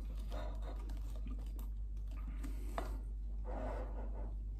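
Small eating and handling noises at a table: soft rustles and a single light click a little over halfway through, over a steady low hum.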